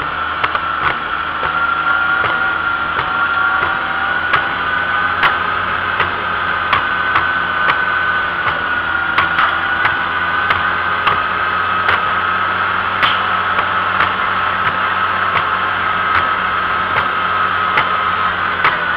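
Vintage farm tractor engine running steadily while the tractor drives along the road, with a steady, slightly wavering high whine over it and scattered sharp clicks and rattles.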